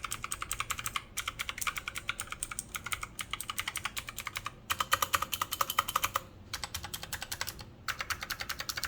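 Typing on an MSI Vigor GK50 Elite mechanical keyboard with clicky Kailh Blue switches: rapid key clicks in runs, broken by a few brief pauses.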